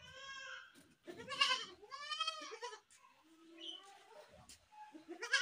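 A young goat kid bleating in a series of short calls: one at the start, a louder one just after a second in, then a quavering one. A faint call follows, and another loud bleat begins near the end.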